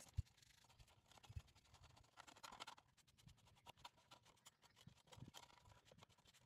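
Faint scratching and clicking, with a few soft knocks, from an old metal kerosene lantern being handled and cleaned.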